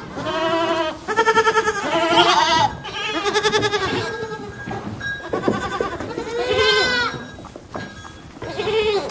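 A lamb bleating over and over, a run of quavering, wavering bleats one after another with short gaps between them.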